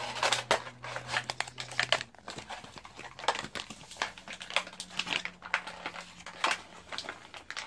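Clear plastic blister packaging of a small toy being pried and pulled open by hand, giving irregular crinkles and clicks.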